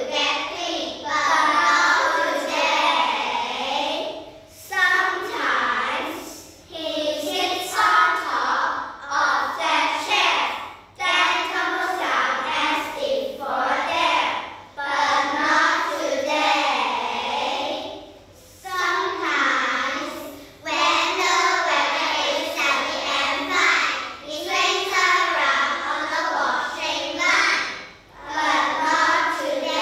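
A group of schoolchildren reciting a poem aloud in unison as a choral speaking team, their voices rising and falling in sing-song lines of a few seconds each with short pauses between them.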